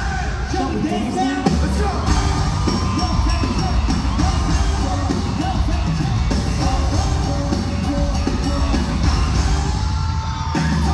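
Live K-pop concert music played loud through the arena sound system, with a heavy bass beat and vocals, and the audience yelling and cheering over it.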